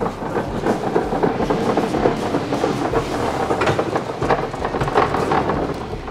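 Manual pallet jack being pulled over a concrete floor: its wheels roll with a steady clatter, and the stacked plywood pieces on the plastic pallet rattle. The clatter stops near the end.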